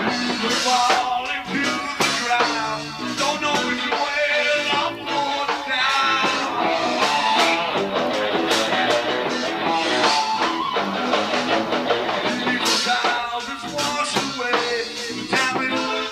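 Live rock band playing: guitar, bass guitar and drum kit.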